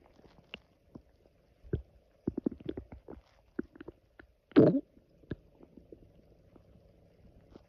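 Human stomach growling on an empty stomach after coffee: a string of irregular short pops and gurgles, with one longer, louder gurgle a little past halfway.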